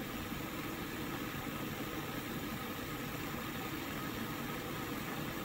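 Water in a stainless steel saucepan just below the boil: a steady rushing hiss with a fine crackle, made by water vapour bubbles forming on the hot pan bottom and collapsing as they rise into cooler water.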